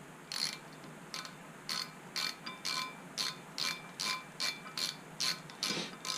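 Ratchet wrench clicking in a steady series of short strokes, about two a second, with a sharp metallic ring on each click.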